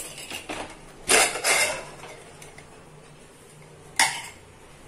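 Pressure cooker lid being unlocked and lifted off: a brief metallic scrape and rattle about a second in, then a single sharp clank near the end. The cooker has fully depressurised, so there is no hiss of steam.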